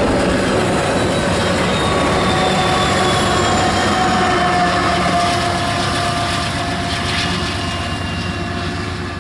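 Freight train cars rolling past on steel rails, with thin squealing tones from the wheels above the steady rumble; the noise eases slightly over the last few seconds.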